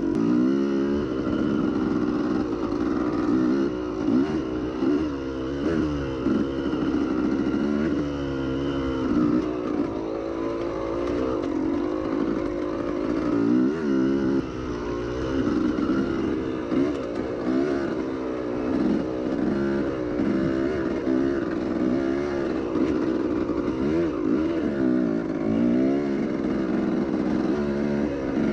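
Yamaha YZ250 two-stroke dirt bike engine under way, its pitch rising and falling again and again as the throttle is opened and closed along a trail.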